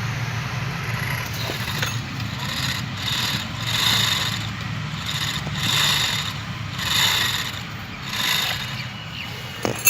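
Hyundai Verna electric power steering motor making a rasping, hissing noise that swells and fades about once a second, over a steady low hum. The motor's armature and carbon brushes are burnt.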